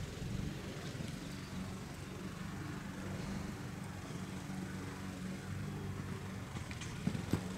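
Low, steady hum of a vehicle engine running, with a few soft knocks about seven seconds in.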